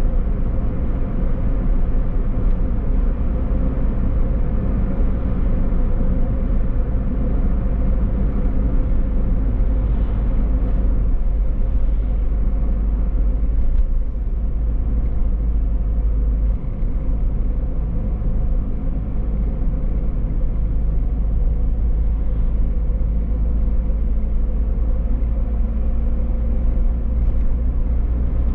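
Car driving along, with a steady low rumble of road and engine noise.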